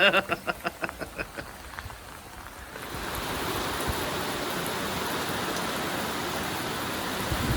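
Steady rain hiss that comes in about three seconds in and holds even. Before it there is a quick run of short taps that fades out in the first second or so.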